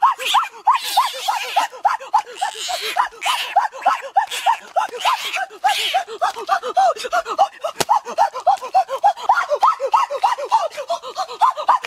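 A chorus of frogs croaking: short, arching notes repeating several times a second and overlapping. In the first half, noisy scuffs of hands and feet working in wet mud come and go.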